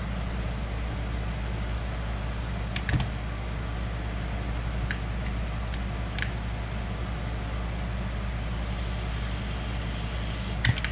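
Light clicks and taps from a four-barrel carburetor's throttle linkage being handled, over a steady low hum. Near the end comes a short hiss of aerosol spray lubricant on the throttle shaft, which is sticking and holding the engine at a high idle.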